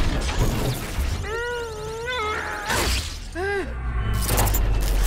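Animated-film action soundtrack: a giant robot's deep continuous rumble with several sudden crashes, and two short high-pitched wavering cries, one about a second in and a shorter one near three and a half seconds.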